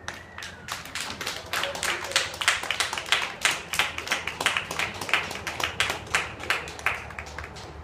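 Hand clapping close by, about five or six claps a second, with fainter clapping behind it; it stops near the end.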